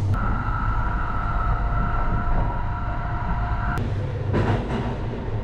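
Kintetsu Hinotori electric train running at speed, heard from inside the car: a steady low rumble with a steady high whine over it that cuts off suddenly a little over two thirds of the way in.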